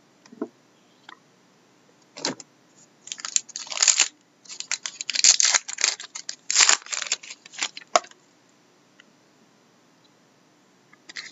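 A trading card pack wrapper being torn open and crinkled by hand, in a string of loud crackling bursts from about two seconds in until about eight seconds in.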